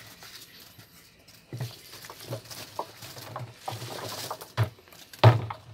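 Chopped vegetable scraps pushed by hand from a bowl into a plastic drum, an irregular run of soft thuds and rustles as the pieces drop onto the pile, with a louder knock near the end.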